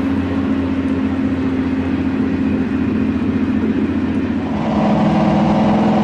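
Chevrolet Corvette Sting Ray (C2) coupe's V8 engine running at low speed with a steady low note. It grows louder about four and a half seconds in.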